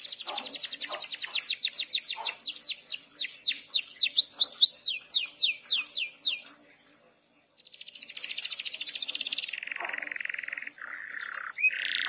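Domestic canary singing. A rapid high trill breaks into a run of slower, louder downward-sweeping notes. After a short pause it starts another fast trill that drops to a lower-pitched trill and ends on a short rising note.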